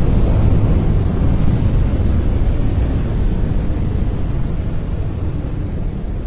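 Brown noise: a steady, deep, rumbling hiss with most of its weight at the low end, slowly fading out.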